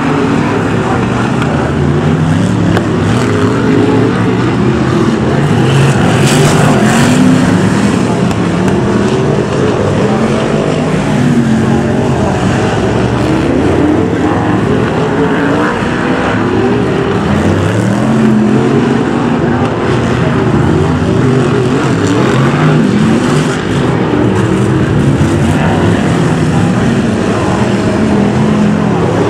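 A pack of BriSCA F1 stock cars' big V8 engines racing round the oval, several engine notes overlapping and constantly rising and falling as the drivers rev along the straights and lift for the bends.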